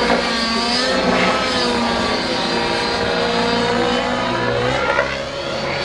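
Radio-controlled model helicopter flying aerobatics overhead. Its engine and rotor make a continuous whine that rises and falls in pitch as it manoeuvres.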